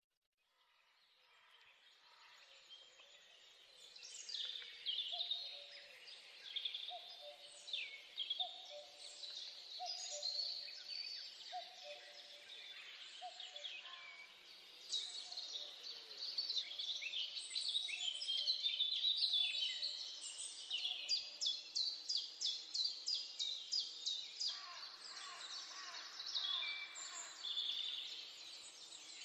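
Nature recording of many songbirds singing together, fading in from silence. A lower call repeats over and over in the first half, and a fast even trill comes in past the middle.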